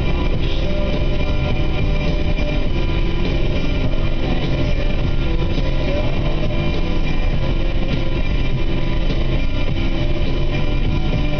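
Steady engine and road noise inside a Saab 900's cabin while cruising at an even speed, with guitar music playing over it.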